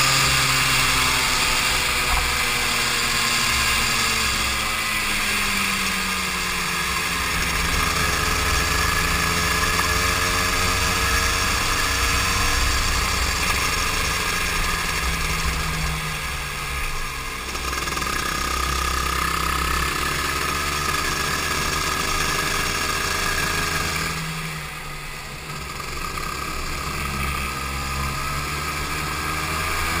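Go-kart engine heard on board, its pitch repeatedly rising and falling as the kart accelerates out of corners and slows into them, with a brief drop in level near the end as the throttle is lifted.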